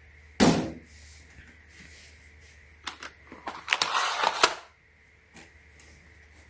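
A desktop computer tower's metal case being handled while it is opened: a loud thump about half a second in, then a run of clicks and scraping about three seconds in.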